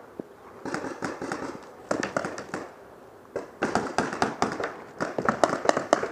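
Paintball markers firing rapid strings of shots, in about four bursts of sharp pops with short pauses between.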